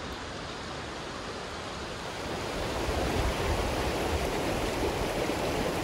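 Shallow mountain creek rushing over a rocky bed: a steady noise of flowing water that gets louder about two seconds in.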